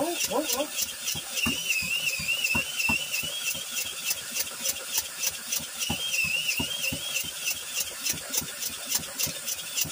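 Cordless drill cranking an old Clinton small engine by its flywheel nut: the drill's motor whine wavers as it strains, over the engine's even chuffing through compression about five times a second. The engine has a leaking head gasket and does not catch.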